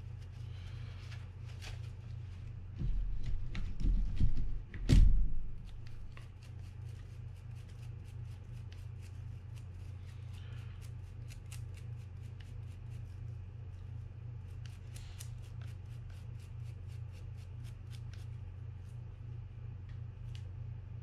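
Toothbrush bristles scrubbing a corroded fishing-reel gear: a long run of quick, dry scratchy strokes. A few heavy low bumps from handling near the start are the loudest sounds, over a steady low hum.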